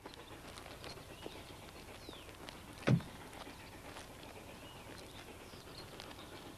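Faint outdoor ambience of footsteps on gravel and small bird chirps, with one solid thud about three seconds in from a car door being shut.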